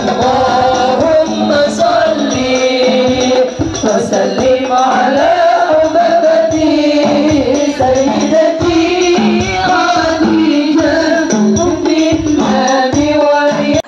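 Sholawat: a devotional melody sung over steady percussion in an even rhythm. It cuts off abruptly at the very end.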